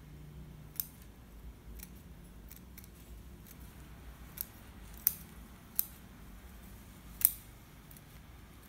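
Steel bonsai scissors snipping through the roots of a cypress: a string of sharp, separate clicks at irregular intervals, about eight cuts, the loudest near the end, as the root ball is pruned short.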